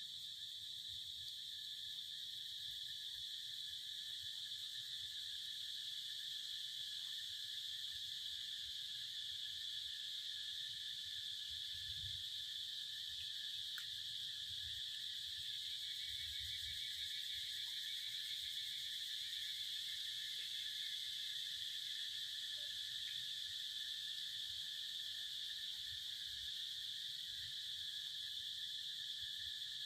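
Steady chorus of insects: a continuous high drone with a fainter, lower second band, unchanging throughout.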